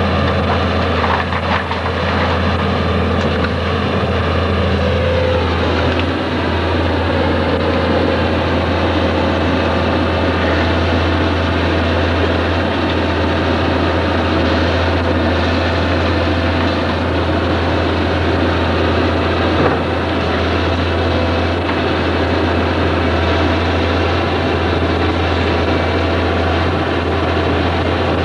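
Case hydraulic excavator's diesel engine running steadily while it works on the demolition, a continuous low drone with no distinct crashes.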